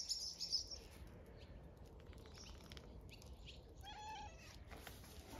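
Birds chirping briefly at the start, then a cat meows once, short, about four seconds in.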